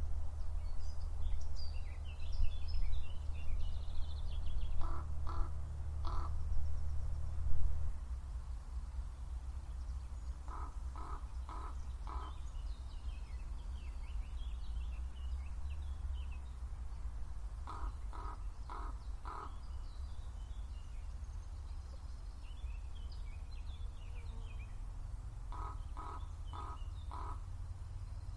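Common raven calling in four runs of three or four calls each, several seconds apart, with small birds chirping in the background.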